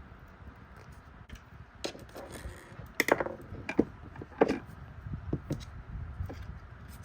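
Handling noise as a cut piece of garland is pushed into the top of a craft roll: rustling with several light knocks and taps, the loudest about three and four and a half seconds in.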